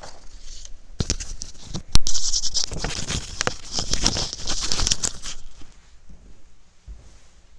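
Paper sheets rustling and crackling as they are handled at a lectern close to the microphone, with sharp clicks, loudest about two seconds in. The noise dies down after about five seconds.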